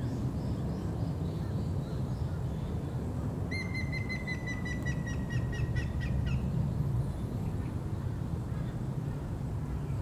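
Grey-headed woodpecker singing: a run of clear whistled notes lasting about three seconds, starting a few seconds in and sliding slightly down in pitch. A steady low rumble lies underneath.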